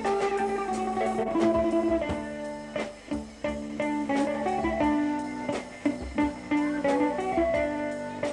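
Instrumental break in a song: a guitar plays a plucked melody over held chords.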